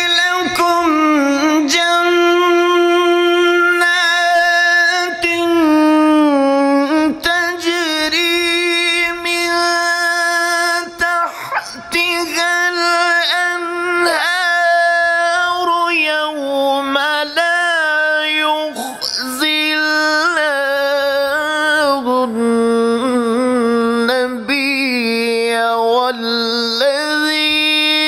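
Male qari reciting the Qur'an in a melodic, drawn-out style: one voice holding long notes and turning them with wavering ornaments and gliding pitch.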